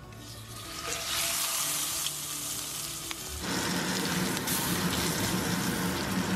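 Sous-vide Wagyu filet mignon searing in hot avocado oil in a cast iron skillet: a steady sizzle that builds up over the first second. About three and a half seconds in, the sizzle turns fuller and lower.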